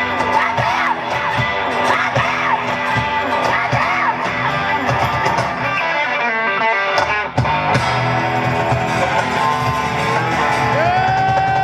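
Live rock band playing loud with electric guitar, with bent guitar notes over the band. About seven seconds in the playing breaks off briefly, then long held guitar notes ring, one bending upward near the end.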